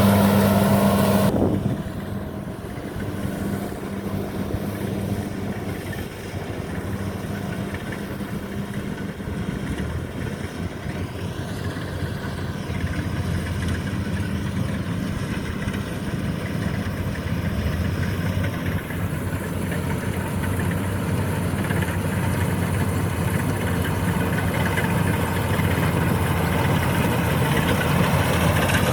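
Kubota combine harvester running as it works a rice field, a steady engine drone. It is loud for the first second and a half, drops off sharply, then slowly builds up again.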